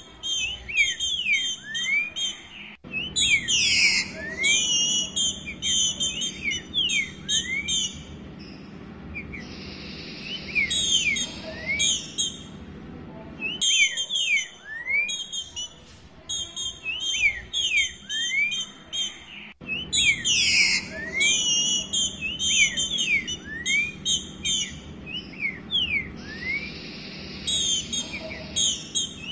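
Female green-winged saltator (trinca-ferro, Saltator similis) calling in quick runs of short, rising whistled notes, repeated in bursts with brief pauses. This is the female's mating-solicitation call ('pedindo gala'), which breeders play to excite males.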